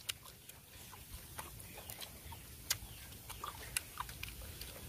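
Chewing and lip-smacking of people eating meat: a few irregular sharp mouth clicks over a faint background.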